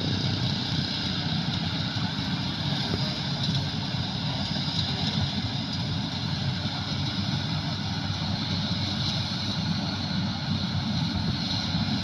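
Rice combine harvester running steadily, its engine and threshing machinery making a continuous mechanical drone.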